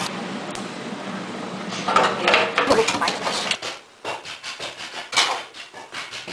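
Stainless steel machine parts being handled during cleaning: clattering and scraping of metal, over a steady hum that stops a little past halfway. This is followed by irregular rubbing and knocks as a cloth wipes the inside of the steel bucket.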